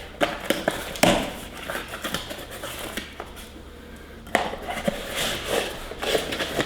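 Rustling of packaging and scattered knocks as items are handled and unpacked from a box, with sharper knocks about a second in and about four seconds in.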